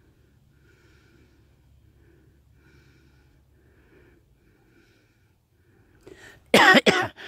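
Two loud, harsh vocal calls in quick succession about six seconds in, each falling sharply in pitch, after several seconds of only faint rustling.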